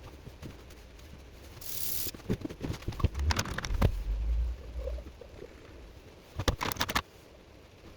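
Handling noises: scattered knocks and clicks, a short hiss about two seconds in, a low rumble around the middle, and a quick cluster of clicks near the end.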